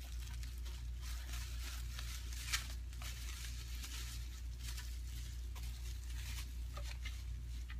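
Packaging being handled and unwrapped: scattered rustling, crinkling and light clicks, with a sharper click about two and a half seconds in, over a steady low hum.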